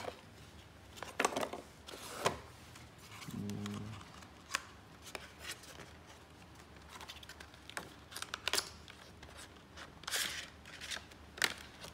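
Cardboard trays and paper inserts of a smartphone retail box being lifted out and handled: scattered taps and clicks of paperboard with a few short rustles.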